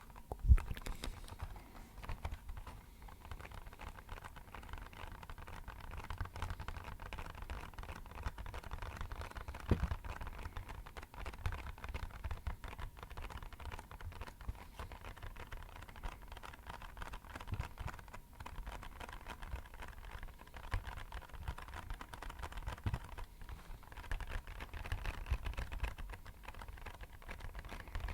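Fingertips tapping rapidly and continuously on an empty box, a dense patter of small taps like rain falling, with an occasional louder knock.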